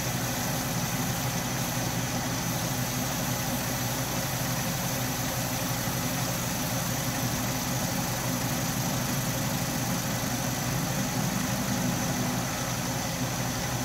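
Atlas 10-D metal lathe running steadily, its spindle and chuck spinning a small brass cross feed nut, with a low, even hum.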